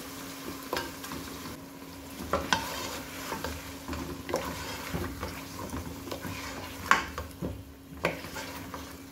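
Raw chicken pieces sizzling as they are stirred into frying masala in an aluminium pot. A wooden spoon scrapes and knocks irregularly against the pot.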